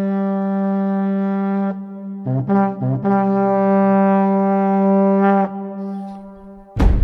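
Trumpet call: one long held note, two short notes, then the same long note again, fading out. A loud low thump comes near the end.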